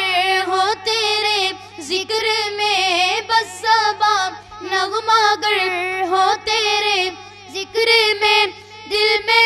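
Two boys singing a naat, an Urdu devotional song in praise of the Prophet, into microphones without instruments: one wavering, ornamented melody line in phrases broken by short breaths.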